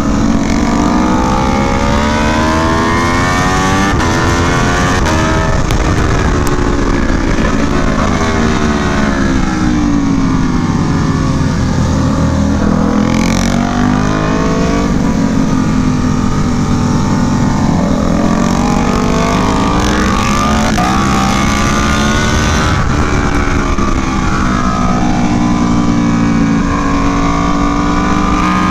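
Aprilia Tuono V4 1100 Factory's V4 engine through an SC Project CR-T exhaust, heard onboard on track: the revs climb hard, drop away and climb again several times as the bike accelerates out of corners and slows into the next, over a steady rush of wind and road noise.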